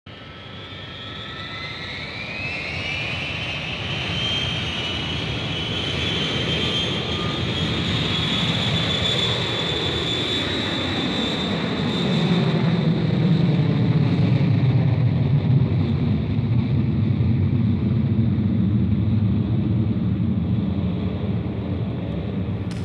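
Jet aircraft engine: a high whine rises in pitch over the first few seconds and then holds steady, while a deep rumble builds and grows louder from about halfway through.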